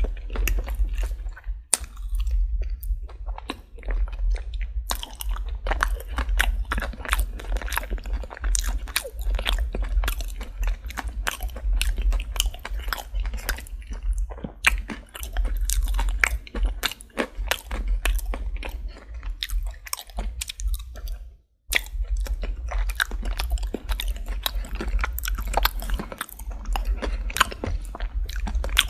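Close-miked chewing and biting of crispy Popeyes fried chicken: rapid, dense crunches of the fried coating, over a steady low hum. The sound drops out completely for an instant about two-thirds of the way through.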